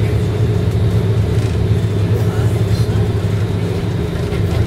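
Bus engine and road noise heard from inside the moving bus's cabin: a steady low drone with an even hum.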